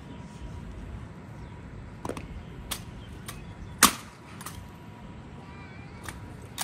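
Scattered sharp clicks and knocks at irregular intervals over a low steady background, the loudest one about four seconds in.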